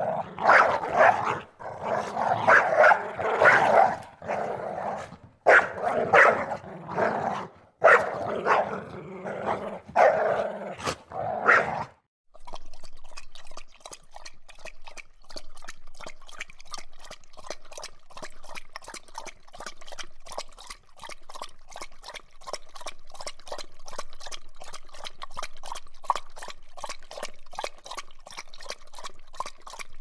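A dog barking in loud bursts with short gaps for about twelve seconds. The track then cuts to a quieter, fast, even run of short sounds several times a second, a dog lapping water.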